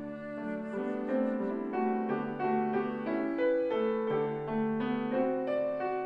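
Grand piano playing a solo classical passage, several notes sounding at once and changing quickly, with the flute silent.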